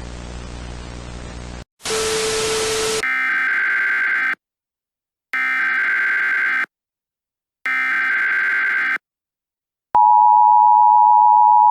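Emergency Alert System header: steady static hiss, then a short harsh noise burst, then three buzzy, screechy SAME data bursts about a second apart. About two seconds from the end the loud, steady two-tone EAS attention signal begins.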